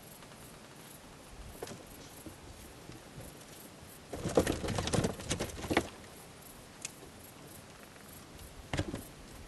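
Edible dormouse scrabbling on the wooden boards of a roof space: a rapid run of scratches and clicks about four seconds in, lasting nearly two seconds, and a shorter burst near the end, with a few single ticks in between.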